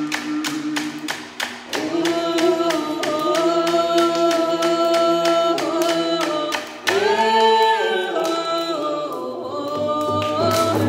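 A group of voices singing a canoe family song in unison to hand drums beaten in a steady beat of about four strikes a second. The singing comes in about two seconds in, and about seven seconds in a new, higher phrase starts and slides down, with the drumming getting louder near the end.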